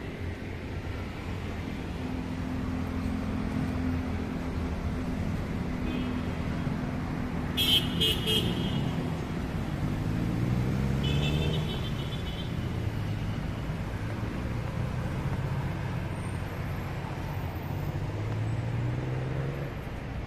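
Road traffic passing on a multi-lane street, with vehicle engines rising and falling in pitch as they pull away. A vehicle horn toots in a quick burst about eight seconds in, and a fainter horn follows about three seconds later.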